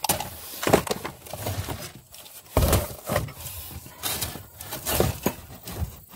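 Belongings being rummaged through and handled: irregular clunks, knocks and rustling.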